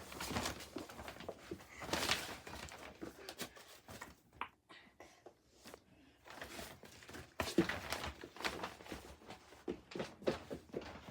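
Scattered light clicks, taps and rustling, irregular and unpitched, with a brief louder rustle about two seconds in.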